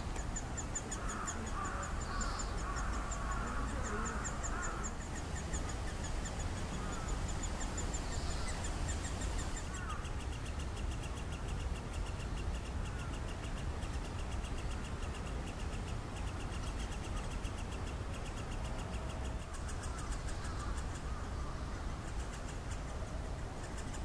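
Great spotted woodpecker nestlings calling from inside their nest hole in a tree trunk: a fast, steady run of repeated high notes that goes on and on, over a low background rumble.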